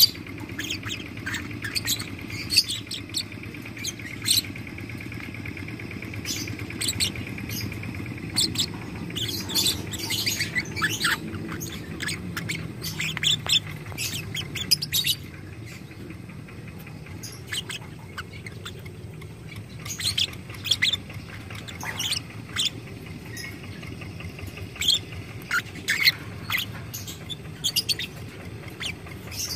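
Lovebird calling: sharp, shrill chirps scattered throughout, with a long rattling trill (the 'ngekek panjang') that runs for about eight seconds starting a second in.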